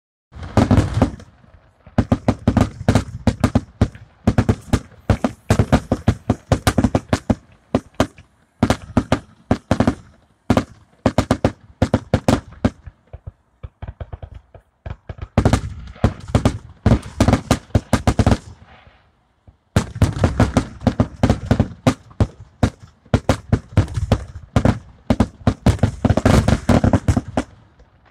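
Fireworks finale: rapid volleys of loud booms and crackling reports, many a second, in dense clusters that pause briefly and restart several times.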